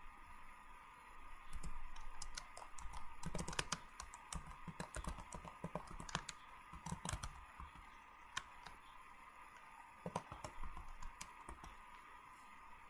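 Faint, irregular clicks and taps, bunched in the first half with a few more later, over a steady high-pitched background hum.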